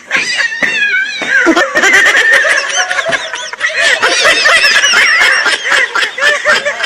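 Many high-pitched animal calls overlapping, short rising-and-falling cries several a second, busiest in the middle.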